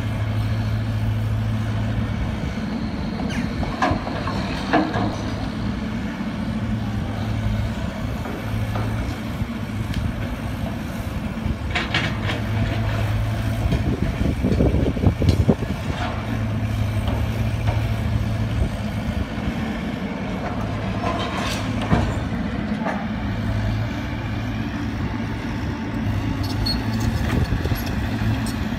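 Diesel engine of a Wacker Neuson ET90 mini excavator running steadily as it works, its hum swelling and easing in stretches, with a few knocks and clatters of demolition rubble.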